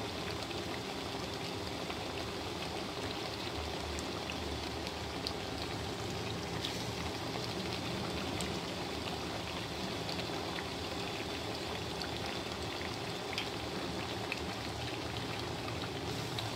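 Besan-battered potato tikkis (aloo tikki) deep-frying in hot oil: a steady sizzle and bubbling, with small pops here and there.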